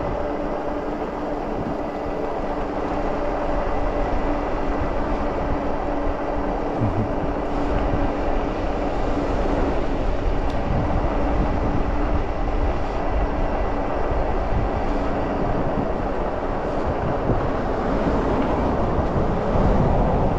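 Wind rushing over the microphone and tyre rumble on asphalt from an Engwe Engine Pro electric bike coasting downhill at about 16 mph, unbraked, with its motor in energy-recovery mode charging the battery. A faint steady hum runs under the noise.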